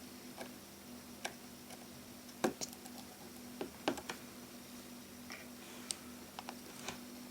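Small, sharp clicks and taps of a precision screwdriver and tiny screws on the metal shield plate inside an iPhone 6 Plus. The clicks are scattered and irregular, with the two loudest near the middle.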